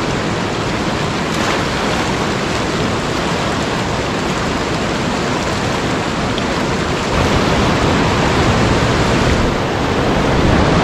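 Fast-flowing mountain river rushing over rocks in rapids, a steady wash of water noise that grows a little louder about seven seconds in.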